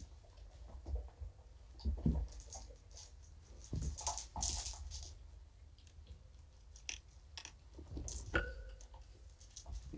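Kittens playing among toys on a blanket: scattered light clicks, taps and rustles, busiest about four to five seconds in, with a brief squeak about eight seconds in.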